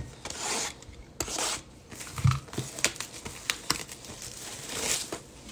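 Cardboard trading-card hobby box being handled and opened: rustling, scraping and crinkling of cardboard and wrapping, with a few small taps and knocks.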